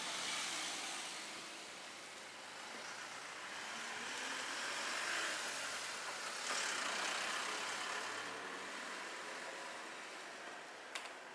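Road traffic: vehicles passing, their tyre and engine noise swelling and fading twice. A short sharp click comes near the end.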